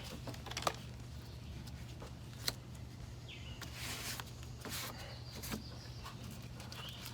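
Faint handling sounds of adhesive tape being pulled and pressed down: scattered light clicks and a few short rustles and squeaks, over a steady low hum.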